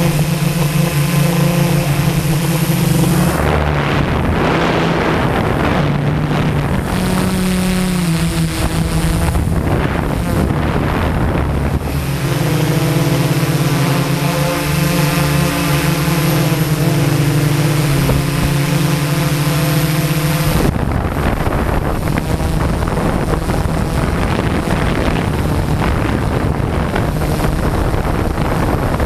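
Quadcopter's electric motors and propellers buzzing close to the on-board camera, the pitch stepping up and down several times, with wind rushing across the microphone at times.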